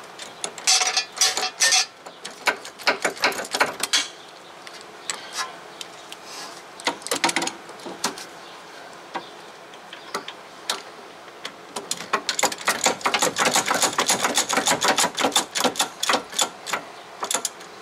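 Hand ratchet clicking in quick runs as a rear brake caliper bracket bolt is backed out, several bursts with the longest and densest in the second half.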